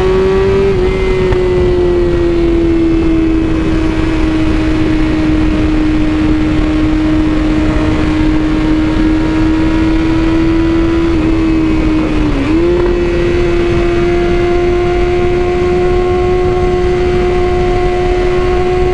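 BMW S1000RR inline-four engine running at a steady highway cruise, its pitch holding almost constant, with a brief dip and recovery about twelve seconds in, over steady wind rush.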